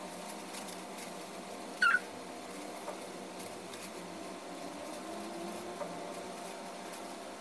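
Faint steady hum with a single short, high squeak about two seconds in.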